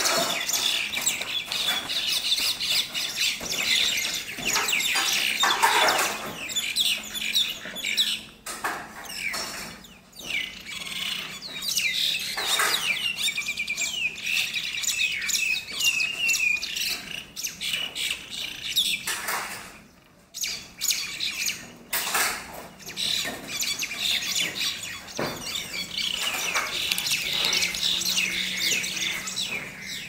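Small birds fighting, calling loudly with a dense, rapid chatter of harsh chirps and squawks, with brief lulls about a third and two-thirds of the way through.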